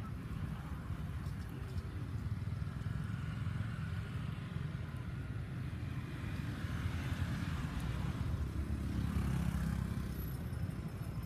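Low, steady rumble of motor traffic, swelling as a vehicle passes about eight to ten seconds in.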